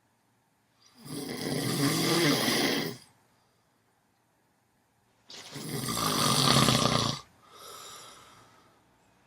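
Snoring in slow breaths: two long, loud snores about four and a half seconds apart, the second followed by a softer, shorter breath sound.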